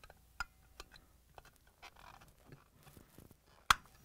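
Faint plastic clicks and rustles of a cover being pushed onto the relay and overload assembly on a refrigerator compressor, with one sharp snap near the end.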